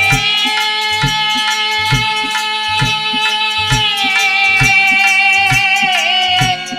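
Dhola folk music: one long held melodic note that slips slightly lower about two-thirds of the way through, over a steady drone and a regular drum beat.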